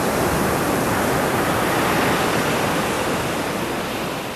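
A steady rushing noise, like surf or wind, that swells to its loudest about two seconds in and then slowly fades.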